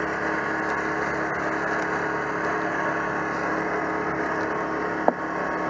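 An engine running steadily at a constant pitch, with a single short click about five seconds in.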